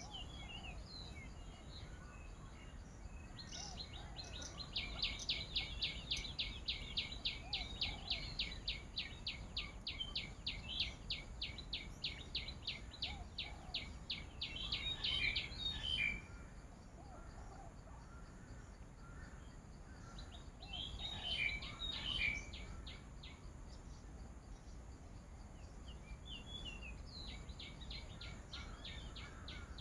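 A bird calling: a rapid, even series of high chirps, about four a second, runs for some twelve seconds, then comes back twice in shorter runs, over steady outdoor background noise.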